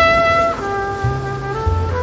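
Background music: a jazzy brass tune, a trumpet-like lead playing held notes that change about every half second over a bass line.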